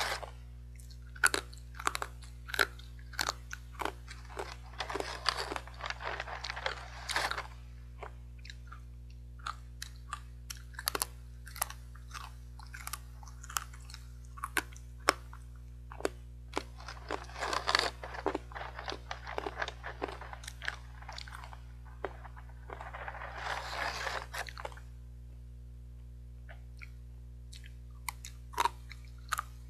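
Close-up crunching and chewing of hard, dry fried sweet potato sticks: sharp snaps as each stick is bitten, with denser runs of crackling as it is chewed. There is a short lull late on before the crunching picks up again.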